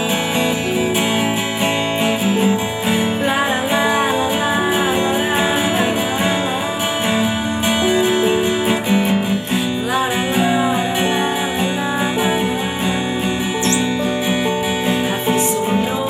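Music led by strummed acoustic guitar, with a pitch-bending melody line over held notes.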